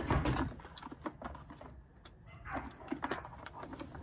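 Metal saw chain of a Homelite 14-inch electric chainsaw clinking and rattling against the bar and sprocket as it is worked back on by hand after coming off, with scattered sharp clicks.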